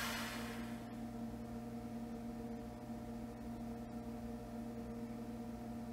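Steady low hum with a few faint steady tones from the benchtop injection molder's electric hydraulic power unit, with the clamp held at pressure. A hiss fades out in the first half-second.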